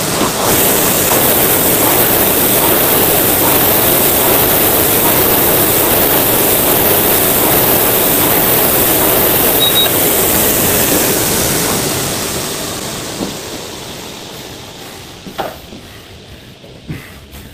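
Air rowing machine's fan flywheel whooshing loudly and steadily under hard rowing, then winding down and fading away over the last few seconds as the rowing stops. A short high beep about ten seconds in.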